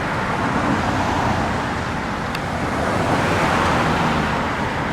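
Steady road traffic noise, swelling a little past the middle.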